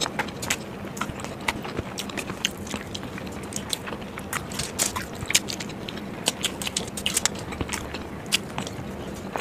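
Close-miked biting and chewing of boiled eggs: many quick, irregular mouth clicks and smacks.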